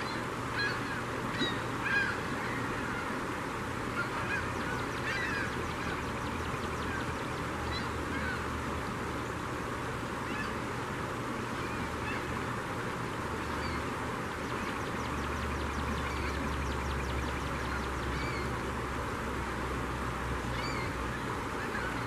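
A feeding flock of gulls calling in short squawks, thickest in the first few seconds and then scattered, over the steady rush of river water over shallows.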